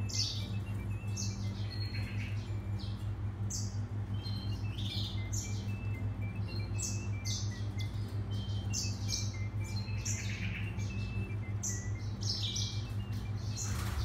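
Caged finches, a grey singing finch × canary hybrid and its cagemate, chirping: short high notes repeated about once or twice a second, with a few brief pauses, over a steady low electrical hum.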